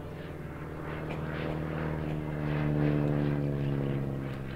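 VL Viima II biplane's Siemens-Halske Sh 14A seven-cylinder radial engine and propeller droning during an aerobatic pass, growing louder to a peak about three seconds in and then fading.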